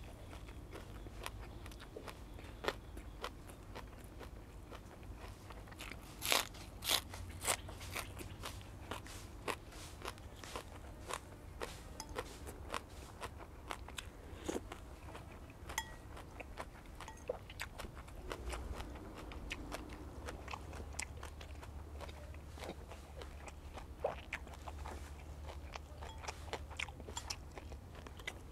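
Close-miked chewing and crunching of a mouthful of fresh yardlong beans and raw beef, with many sharp crunches and wet mouth clicks; the loudest crunches come about six to seven seconds in.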